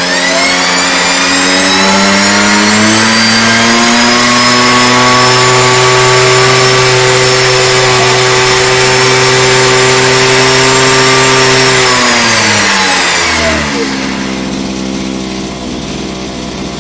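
Small two-stroke engine of a handheld Ochiai tea harvester running. It revs up sharply in the first second and holds at high speed for about twelve seconds. Then it drops back to a steady idle.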